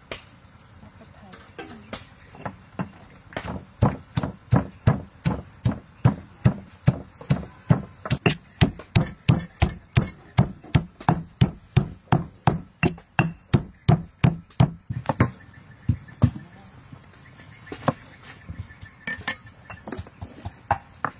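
Stone pestle pounding red chillies and garlic in a stone mortar: a steady run of dull thuds, about two to three a second, lasting some twelve seconds, then a few scattered sharper knocks near the end.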